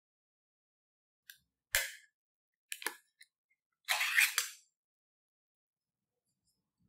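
Ring-pull lid of a tin can of tomatoes opened by hand: a sharp pop about two seconds in as the tab breaks the seal, a couple of smaller clicks, then a short tearing scrape as the lid is peeled back, a little after four seconds.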